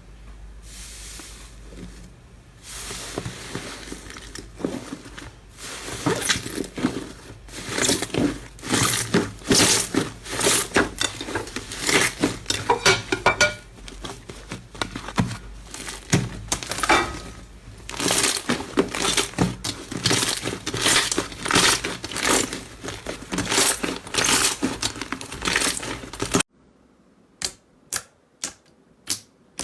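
Slime being squeezed and worked by hand, giving a dense run of crackling and popping clicks that builds in loudness. It cuts off suddenly near the end, followed by about six separate sharp clicks.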